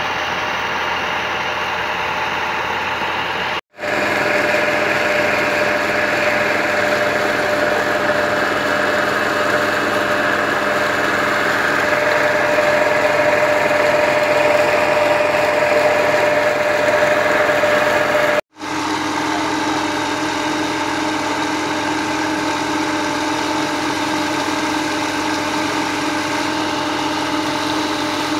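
Fiat 640 tractor's diesel engine running steadily as it drives a tubewell pump, over the rush of water gushing from the outlet pipe into a pool. The sound cuts out briefly twice, near the start and about two-thirds of the way in.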